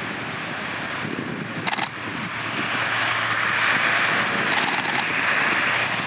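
The four turboprop engines of a Lockheed C-130 Hercules on its takeoff roll, growing louder from about two and a half seconds in. Two short bursts of rapid camera shutter clicks, about two seconds in and again near five seconds in.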